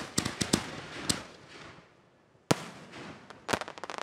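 Aerial firework shells bursting: a loud bang at the start and another about two and a half seconds in, each followed by a run of sharp cracks, with a spray of small crackles near the end.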